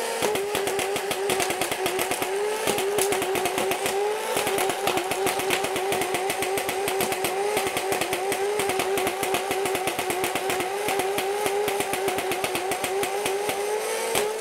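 Nerf Rival Nemesis firing full-auto on a 3S LiPo: a steady, high flywheel-motor whine that dips slightly in pitch now and then, over a rapid clatter of the pusher, the belt feeder and balls leaving the blaster.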